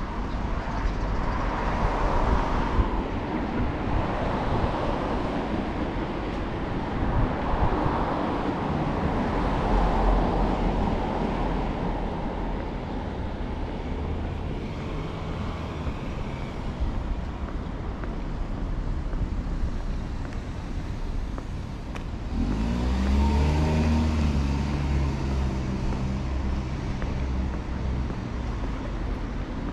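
Road traffic: cars passing one after another on a street, their tyre noise swelling and fading. About 23 seconds in, a louder engine comes close, its note rising and then falling as the vehicle pulls away.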